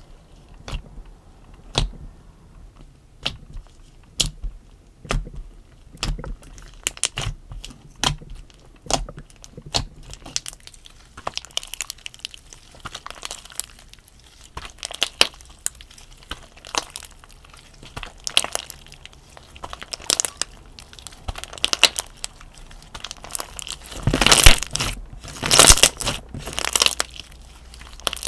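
Hands playing with slime: a string of sharp clicks and pops at first, then denser crackling and crunching, loudest in a couple of bursts near the end.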